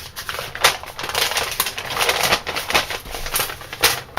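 Paper instruction leaflet being handled and unfolded, crinkling and rustling in irregular crackles.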